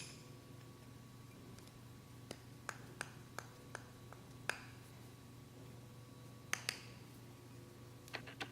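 Scattered light metallic clicks and taps from bearings and metal drivetrain parts being handled and seated into a gearbox plate, a few with a short ring, over a low steady hum.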